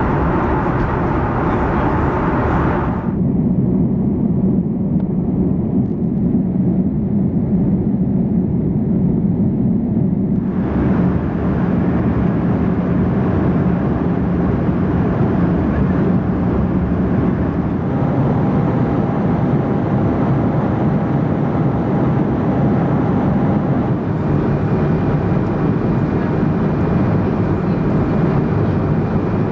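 Steady roar of airflow and engine noise inside an Airbus A330-900neo passenger cabin, with a faint steady whine from about two-thirds of the way in. Its tone changes abruptly about three and ten seconds in.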